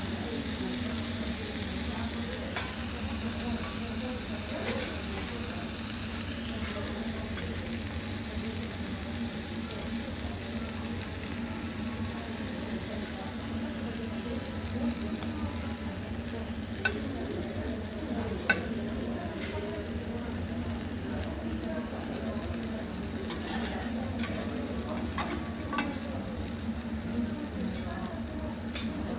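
Food sizzling on a steel teppanyaki griddle, with scattered sharp clicks and taps of the chef's metal spatulas against the plate.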